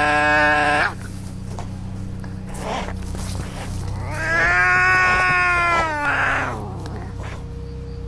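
Domestic cats yowling in a fight standoff: a long drawn-out yowl breaks off about a second in, and another long wavering yowl rises about four seconds in, ending in a short hiss.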